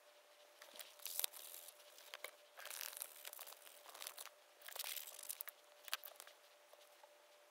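Sandpaper being handled and rubbed: a round sanding disc crinkling and scraping in three short bursts, with light clicks of small tools on the table.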